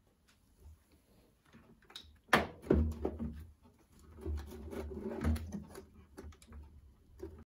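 Plastic clicks, knocks and rattles as the front control panel and detergent dispenser housing of a Hotpoint WMYL 641 washing machine are worked loose by hand. The loudest knocks come a little over two seconds in and again around five seconds.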